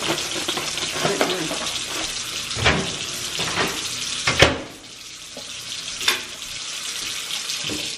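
Water running from a tap into a kitchen sink, with a few sharp knocks; about halfway through it drops to a softer hiss.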